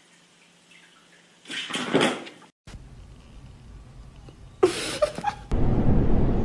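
A short rush of noise about two seconds in. Then, about a second and a half later, a dog's brief vocal sounds over a low hum. Near the end a subway car's loud, steady rumble sets in.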